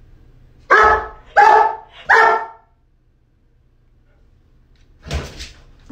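A Doberman barking three times in quick succession, each bark short and loud. A brief noisy sound follows about five seconds in.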